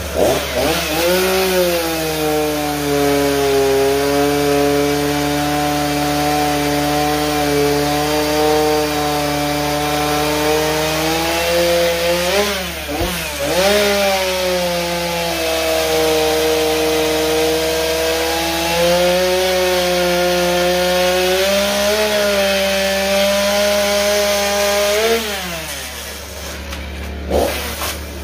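Gas chainsaw cutting into a block of wood, its engine held at steady high revs under load. The revs dip and pick up again about halfway through, then fall off near the end, with a short rise just before the end.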